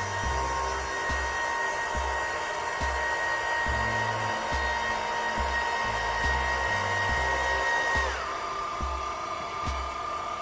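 Electric urethane dispensing gun, a Sika PowerCure, with its motor running in a steady whine. The pitch is raised at first and drops to a lower speed about eight seconds in. Background music with a steady beat plays underneath.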